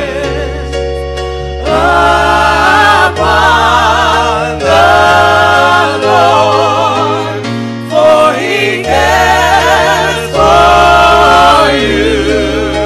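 Gospel music: several voices singing long held notes with vibrato over a low bass line that steps to a new note every second or two.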